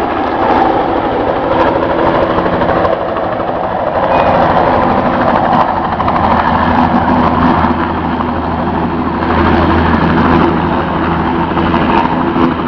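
Helicopter flying close by, a loud steady drone of its rotor and engine that swells and eases slightly as it passes and circles back around.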